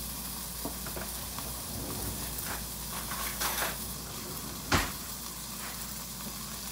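Ribeye steak searing on its edge in hot bacon grease in a skillet: a steady sizzle with a few faint crackles, and one sharp click about three-quarters of the way through.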